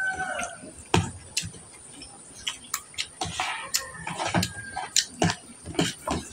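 Irregular light clicks and taps of a spoon on a plastic plate and of shrimp being peeled by hand at the table, spaced unevenly. A rooster's crow tails off at the very start.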